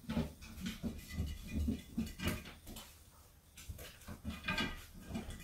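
A small terrier's paws thumping and nails clicking on the wooden boards of a double-rail balance beam and on a hardwood floor: irregular light footfalls with sharper clicks now and then.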